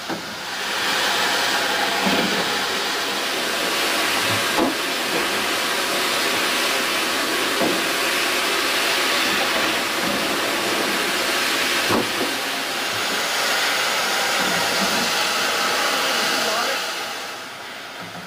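Water jets spraying inside a plastic-crate washing machine, a loud steady hiss that builds about a second in and fades near the end. Now and then a plastic crate knocks.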